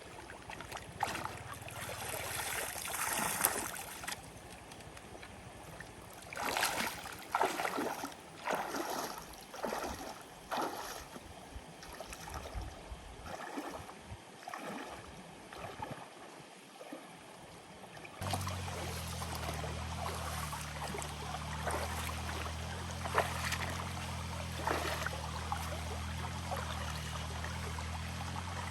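Water sloshing and splashing in irregular bursts. About two-thirds of the way through, a steady low hum starts and runs under the water sounds.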